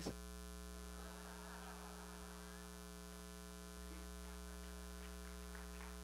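Steady electrical mains hum in the recording's audio feed, with a faint, indistinct noise from about one to two and a half seconds in.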